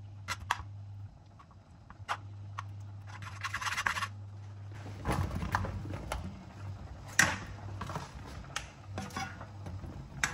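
A plastic spatula scraping and tapping in a non-stick wok as butter melts. About five seconds in, sliced mushrooms are tipped in from a chopping board and stirred, with a run of denser scrapes and knocks.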